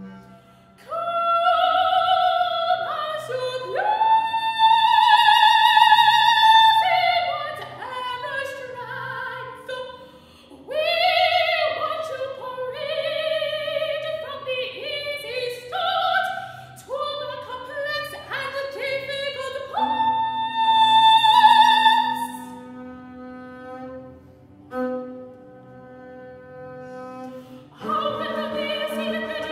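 Operatic soprano voice singing held high notes and quicker moving phrases over low sustained notes from a bowed double bass. The voice drops out for a few seconds near the end, leaving softer tones, then comes back in.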